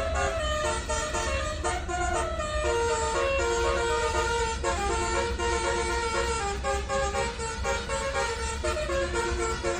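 Basuri telolet horn, a set of electric trumpet horns, playing a tune of quickly changing notes with several tones sounding together, over a steady low rumble.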